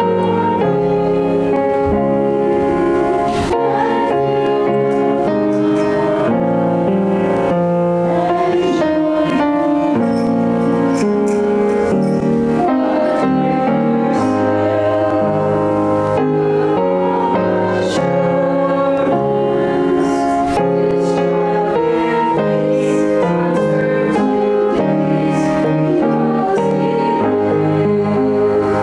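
A small group of women singing a hymn together with keyboard accompaniment, in slow, sustained chords that change step by step.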